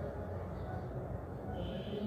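Steady low background rumble and hum with no distinct event: room tone.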